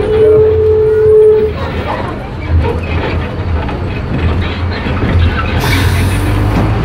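Low, steady rumble of a moving passenger vehicle heard from inside, with rattles and knocks. A single steady high tone sounds for about the first second and a half. Near the end comes a burst of hissing air.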